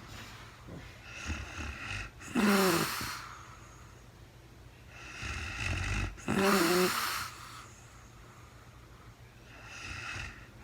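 A sleeping woman snoring: slow, regular breaths about four seconds apart, each a soft rush of air followed by a louder snore with a buzzing pitch, two full breaths and a third beginning near the end.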